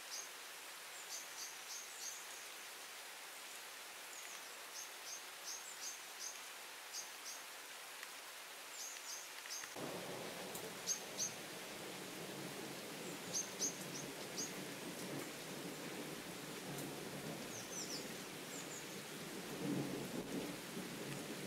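Steady rain falling, with a small bird chirping in short repeated calls. About ten seconds in a long low rumble of thunder starts and rolls on, swelling again near the end.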